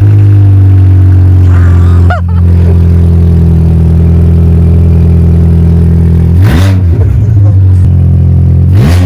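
Mini Cooper engine running very loud on a cold start through only a new sports exhaust manifold, with no catalytic converter or rest of the exhaust fitted. It runs steadily, with two brief blips of the throttle near the end.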